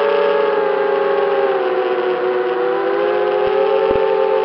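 FPV racing quadcopter's motors and propellers whining steadily as heard from its onboard camera, the pitch dipping slightly about two seconds in and then climbing a little with throttle. Two brief low thumps near the end.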